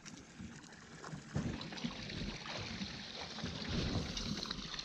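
Water slapping against a small boat's hull in irregular low knocks, with a steady hiss of wind on the microphone.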